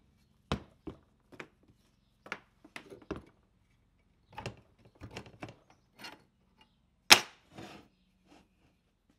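Irregular knocks and clunks of a heavy old bench grinder being set down and shifted about on a metal plate, over a dozen in all, the loudest about seven seconds in.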